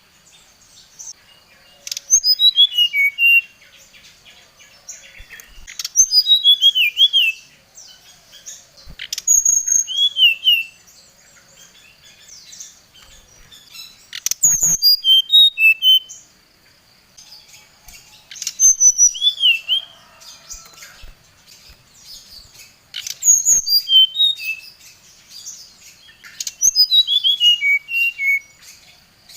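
Brown-chested jungle flycatcher (sikatan rimba dada coklat) singing: short phrases of clear whistled notes that step down in pitch, repeated every three to five seconds.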